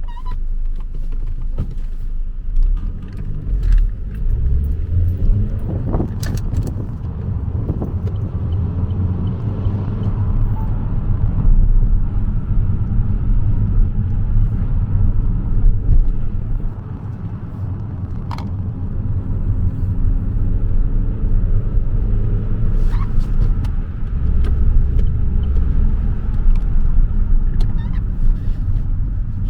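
Vauxhall Insignia 1.4 turbo four-cylinder petrol car on the move: a steady low engine and road rumble, whose pitch shifts as it goes and which eases off briefly twice, a little past halfway and again later.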